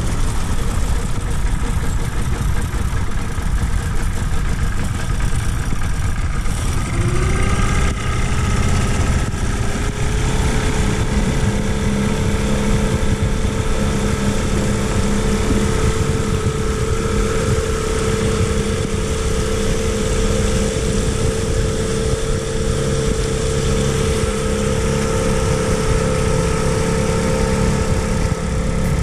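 Tohatsu outboard motor driving an inflatable boat under way. Its pitch rises about seven seconds in as the revs come up, then it runs steadily at speed.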